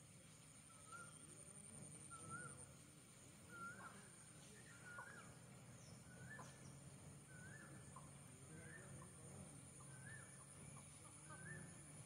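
Faint bird calling, one short rising-and-falling note repeated about once a second, over a steady high-pitched hum.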